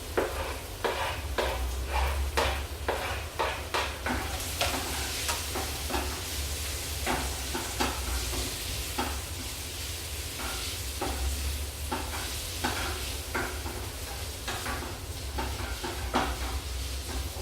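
Chopped smoked turkey, tomatoes and onion sizzling in olive oil in a frying pan, with a utensil stirring and scraping against the pan in a run of irregular clicks.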